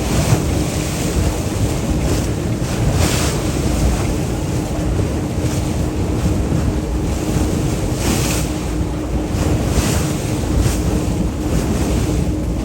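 Wind buffeting the microphone over the rush of water and waves along a moving boat, with a faint steady low hum underneath and a few brief louder washes of spray.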